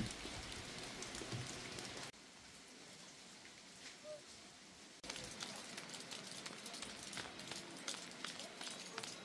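Light rain pattering, an even hiss dotted with small ticks of drops. It turns abruptly quieter about two seconds in and comes back just as abruptly about three seconds later.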